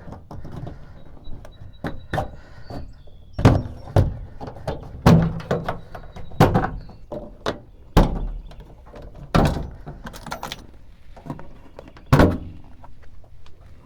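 Inner door panel of a 1979 Dodge D-150 being prised off the door, its retaining clips popping loose in an irregular series of sharp pops and thunks, about seven loud ones among smaller knocks.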